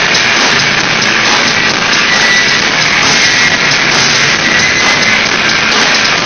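A live band playing loud, guitar-driven rock, heard as a steady, dense wash of sound.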